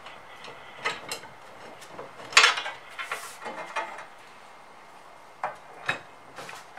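Steel crossbar of a SafeRacks wall-mounted tire rack clanking against its steel side bracket as it is fitted into place: a handful of sharp metal knocks, the loudest a little over two seconds in.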